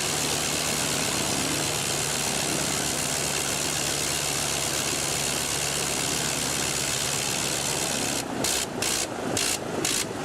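Biplane piston engine running at a steady pitch, then stuttering in and out irregularly near the end.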